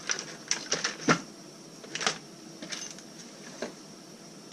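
A handful of separate sharp clicks and knocks from a hard plastic tool case being handled, the loudest about a second in.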